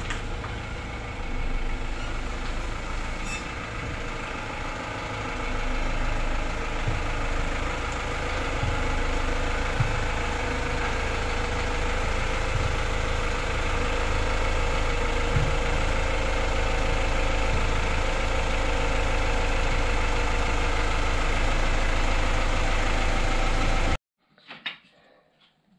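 Ford Transit van's engine running at low revs as the van reverses slowly into the garage, steady and growing a little louder as it comes closer. It stops abruptly near the end.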